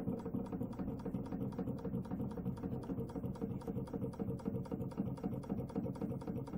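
Model flame-eater (vacuum) engine with a water-cooled cylinder running steadily, ticking evenly about six times a second over a steady low hum.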